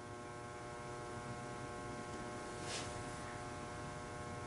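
Steady electrical mains hum, with a faint brief hiss about two and a half seconds in.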